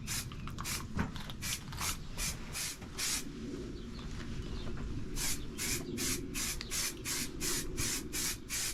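Aerosol can of high-temperature black exhaust paint spraying in a rapid string of short hissing bursts, laying light coats onto a motorcycle exhaust.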